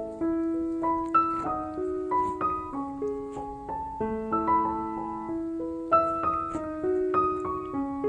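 Background piano music: a slow melody of held notes over chords.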